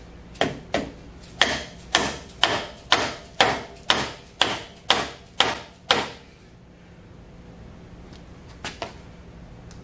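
About a dozen hammer blows on a tight steel nut on a Monarch 10EE lathe spindle clamped in a vise, struck roughly twice a second, each with a short metallic ring, as he tries to break the nut loose. The blows stop about six seconds in, and two faint clicks follow near the end.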